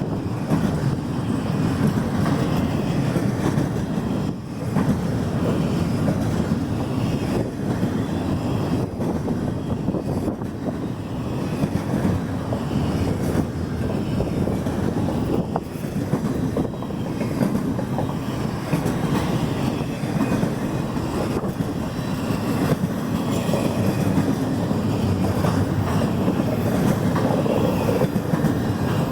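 Union Pacific freight train cars rolling past close by: a steady rumble of wheels on the rails, with faint scattered clicks.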